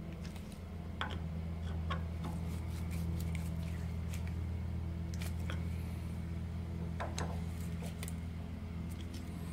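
Screwdriver turning an alternator casing bolt, with scattered small metallic clicks and taps as the tool works the bolt and touches the casing. A steady low hum sits underneath throughout.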